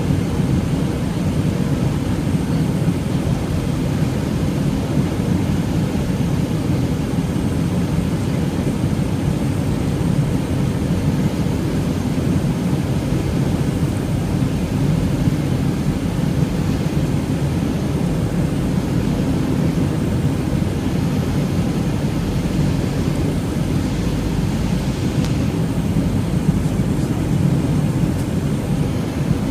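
Airbus A320 cabin noise: a steady low rumble of engines and airflow heard from inside the passenger cabin.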